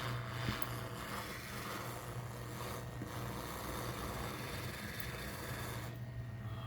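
Hot-air rework station blowing a steady hiss of hot air to solder a replacement chip onto the circuit board, over a low steady hum; the airflow cuts off suddenly about six seconds in.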